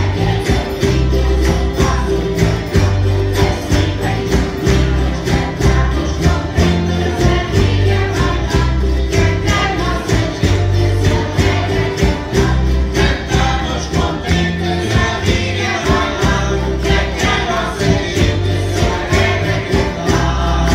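Live Madeiran folk music: a mixed group sings in chorus over strummed guitars and small braguinha guitars in a steady, even rhythm. A jingling brinquinho, the Madeiran folk percussion of bells and castanets on a staff, keeps time.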